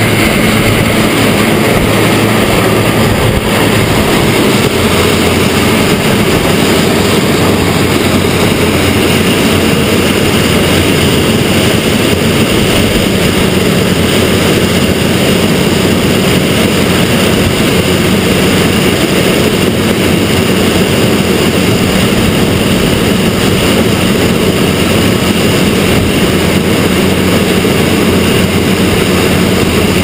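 Combine harvester picking standing corn at close range: a loud, steady machinery noise with a constant low hum under it.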